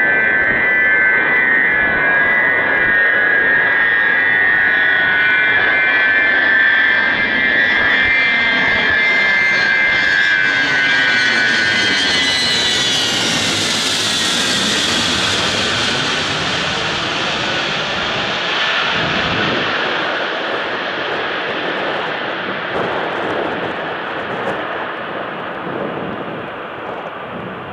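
Ilyushin Il-76TD's four Soloviev D-30KP turbofan engines passing by: a strong high engine whine that sags in pitch and fades about halfway through, as a jet roar with a hissing top swells, peaks, and then slowly dies away.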